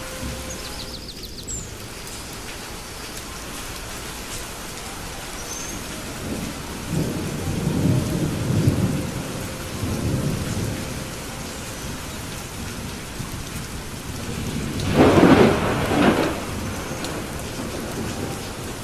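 Steady rain with thunder: a low rolling rumble about a third of the way in, then a louder, sharper thunderclap about three-quarters of the way through.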